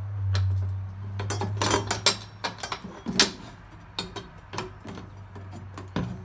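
Metal clinking and knocking as a wheelbarrow's metal leg piece and bolts are handled and fitted, a run of irregular sharp clanks with the loudest knock about three seconds in.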